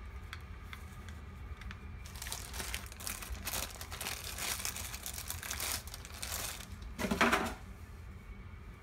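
Clear plastic bag crinkling as a device is slid out of it, after a few light clicks from handling a cable. The loudest crumple comes about seven seconds in.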